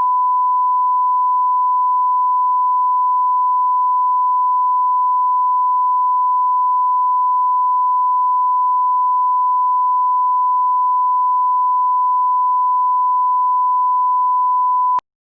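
Loud, steady 1 kHz sine-wave test tone, a single unwavering pitch held for about fifteen seconds, then cutting off abruptly near the end.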